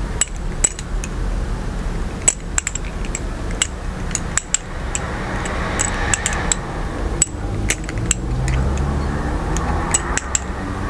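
Balisong (butterfly knife) flipped through a continuous rollover loop: its metal handles clack and click irregularly against each other and the blade as they swing, pivot and are caught.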